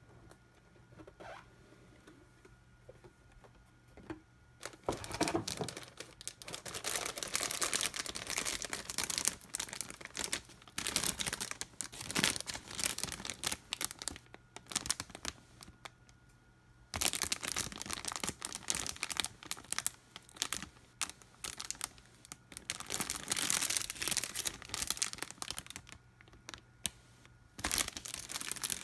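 Thin clear plastic bags holding a model kit's plastic runners and decal sheet crinkling as they are handled, in long stretches of dense rustling that pause twice. The first few seconds are quiet, with only a few light taps.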